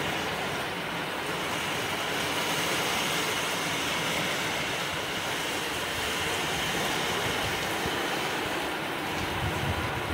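Heavy rain pouring down steadily on trees and bare ground, a constant hiss with no let-up.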